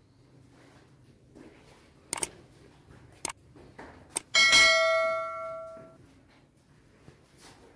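A few sharp clicks, then one small hanging bell struck once as the strings of a bell-and-tassel curtain are brushed. It rings with several clear tones that die away over about a second and a half.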